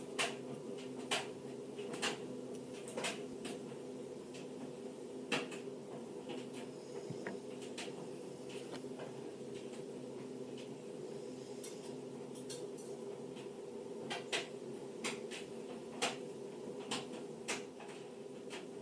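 Light, irregular clicks and clacks of arrow shafts and metal field points being handled and set down on a hard work surface, about one or two a second with a quicker run near the end, over a steady low hum.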